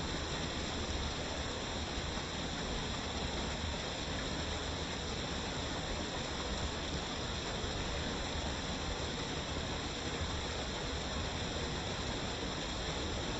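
Waterfall: water pouring down in a steady, unbroken rush.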